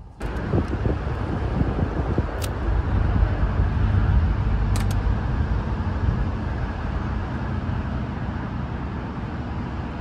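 Steady rumble of road traffic, swelling to its loudest a few seconds in and then easing off, with two short sharp clicks a couple of seconds apart.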